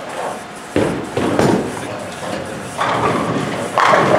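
Bowling ball thudding onto the wooden lane about a second in and rolling down it, then crashing into the pins near the end.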